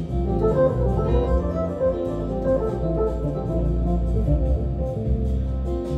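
Music with sustained organ-like chords over a deep, low bass part.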